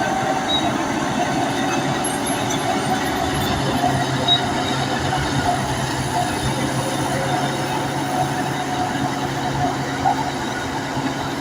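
Crawler bulldozer at work: its diesel engine runs steadily, with scattered metallic squeaks from the steel tracks.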